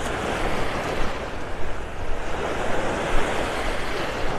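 Small Gulf of Mexico waves breaking and washing up a sandy beach in a steady surf hiss, with wind rumbling on the microphone.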